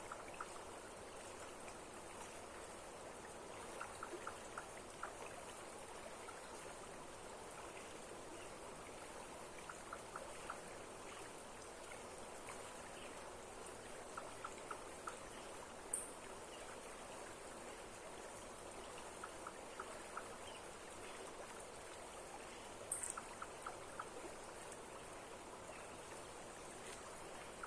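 Steady rush of flowing water from a waterfall or stream. Faint groups of three or four short ticks recur every five or six seconds, and a brief high chirp sounds twice.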